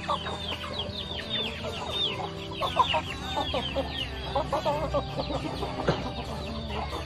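A mixed flock of Bangkok, pelung and kampung chickens clucking, with many short, high, falling peeps several times a second throughout.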